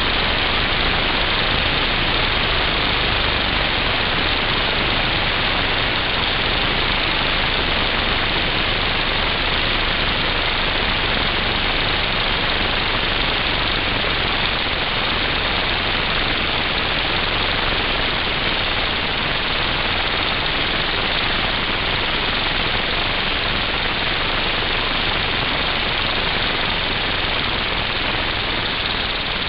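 Steady, loud hiss of compressed air from an air-compressor nozzle blowing into a Lego pneumatic piston engine, which runs continuously, venting its spent air through its exhaust tubes.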